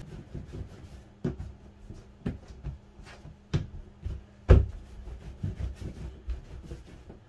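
Hands rolling and shaping sweet-bread dough on a stainless steel bench, with low rubbing and several sharp knocks on the bench, the loudest about four and a half seconds in. A faint steady hum sits underneath.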